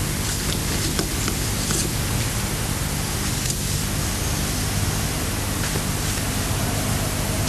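Steady recording hiss with a low hum underneath, and a few faint clicks.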